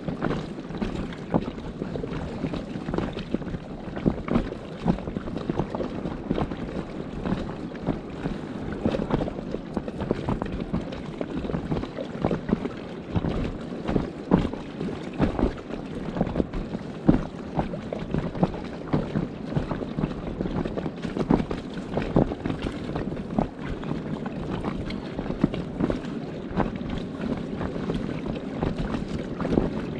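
Wind buffeting the microphone in uneven gusts, a rough rushing noise with frequent short surges.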